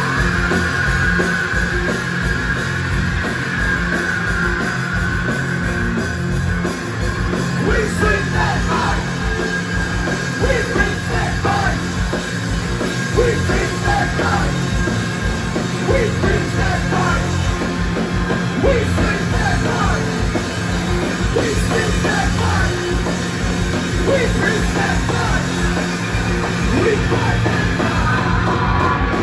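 Live rock band playing loud with electric guitar and synth keyboard, heard from within the audience.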